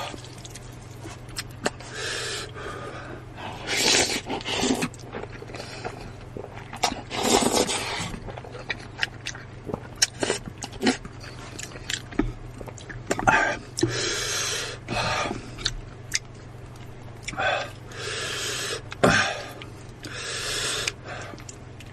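Close-miked slurping and chewing of noodles: repeated hissy slurps lasting up to about a second, with short wet chewing clicks between them.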